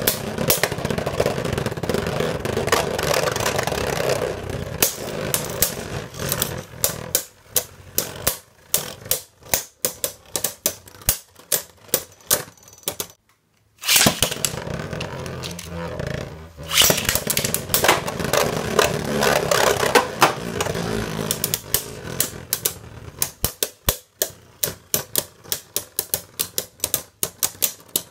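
Beyblade Burst tops (Z Achilles and Archer Hercules) spinning and striking each other in a plastic Beyblade stadium. Stretches of dense grinding rattle break down into runs of separate sharp clicks as the tops knock together more slowly. The sound cuts out briefly about halfway, then a fresh burst of rattling begins.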